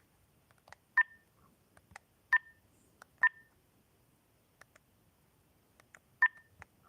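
Huawei smartphone's dial-pad key tones: four short two-tone beeps as numbers are pressed, unevenly spaced, with fainter clicks between them.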